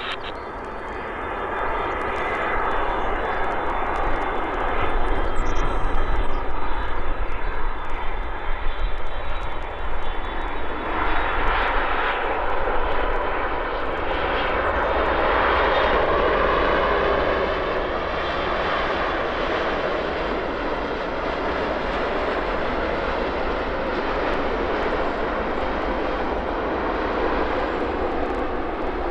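Japan Airlines Boeing 787-8 jet engines on final approach and landing. The noise swells loudest through the middle as the airliner passes and touches down, then settles into a steady rush as it rolls out on the runway with spoilers up.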